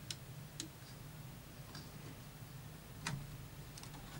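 Sparse small clicks and taps of fingers handling parts inside an opened VCR's tape mechanism: three sharper clicks, near the start, about half a second in and about three seconds in, with fainter ticks between, over a faint steady low hum.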